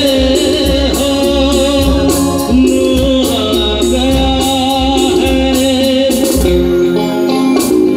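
Live band playing a Hindi film song through a PA system, loud: a male singer over electric guitars, bass and keyboards, with percussion keeping a steady beat.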